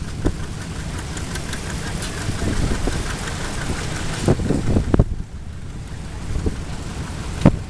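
Several vintage farm tractors running at low speed as they drive past, a steady low engine chugging, with a few short thumps about four to five seconds in and again near the end.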